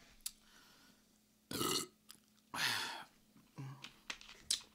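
A man burping after gulping cola: a few short, quiet belches about a second apart, the last one lower. A small click near the end.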